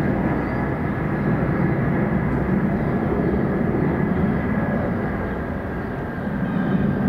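Four Soloviev D-30KP turbofan engines of an Ilyushin Il-76MD on landing approach, gear down: a steady deep jet roar with a thin, steady high whine from the fans above it.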